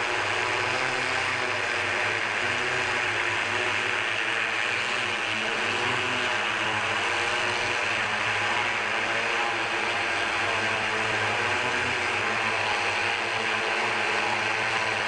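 The brushless electric motors and propellers of a Jetson One electric multicopter in flight, heard from the pilot's seat: a steady whirring hum with several tones over a rushing noise.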